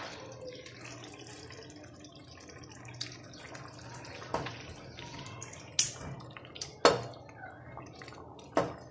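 Wooden spoon stirring a thick, wet onion sauce in a pot as beaten eggs are poured in a little at a time, with wet sloppy liquid sounds. Five sharp knocks on the pot come in the second half, over a low steady hum.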